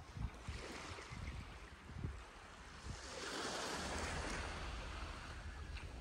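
Small waves of a calm Baltic Sea lapping and washing up a sandy shore, one wash swelling about halfway through and easing off, with low buffets of wind on the microphone early on.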